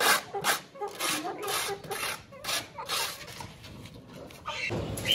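A dustpan scraping dried pigeon droppings and litter across a metal tray in quick, rasping strokes, about two or three a second.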